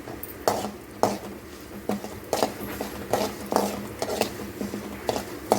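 A metal spoon knocking and clinking against a cooking pan while stirring a tempering of seeds and dals frying in oil, in irregular sharp clinks about twice a second.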